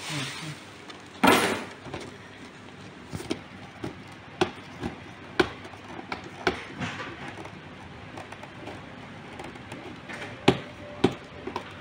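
A plastic carrier bag rustling once, briefly, as a boxed game controller is pulled out of it, followed by scattered light clicks and taps of hands handling and opening the cardboard box.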